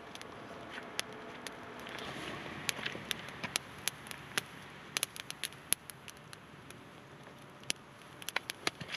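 Wood fire crackling, with many sharp, irregular pops and snaps, over faint road traffic noise that swells briefly a couple of seconds in.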